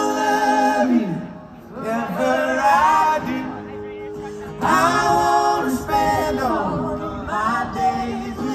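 Live country band with singing: voices hold long, sliding notes in four phrases of about two seconds each over the band, heard from within the crowd.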